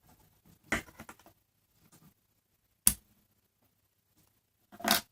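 Handling noises from opening a yarn pom-pom maker: a few short rustles and scrapes, one sharp click about three seconds in, and another rustle near the end.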